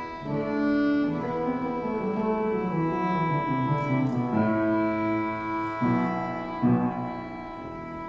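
Violin playing a slow melody of held notes over a lower accompaniment, with one long sustained note in the middle; it softens about seven seconds in.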